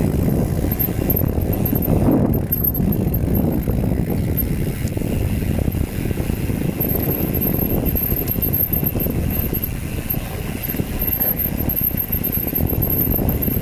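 Steady rumble of wind buffeting the microphone, mixed with tyre noise from a bicycle rolling along the trail.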